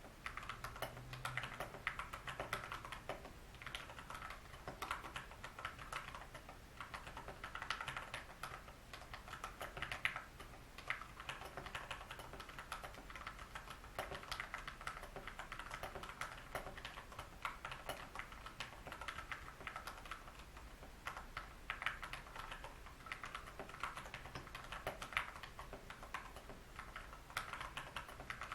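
Continuous typing on a Vortex Pok3r 60% mechanical keyboard with Cherry MX Brown switches lubed with SW-92SA grease: a steady run of quick key clicks, with no squeak from the lubed stabilizers.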